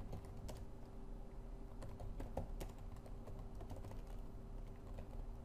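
Typing on a computer keyboard: a quiet run of quick, irregular key clicks.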